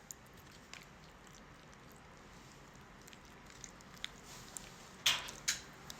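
Close-miked eating of KFC food: small mouth clicks and soft chewing, then two loud bites about five seconds in, half a second apart.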